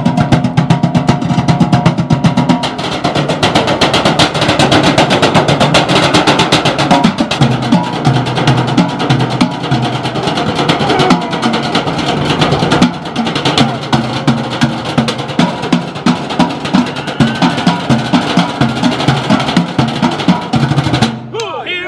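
Drumsticks beating a fast, dense rhythm on galvanized metal trash cans, a trash-can percussion routine. The drumming breaks off briefly near the end, then starts again.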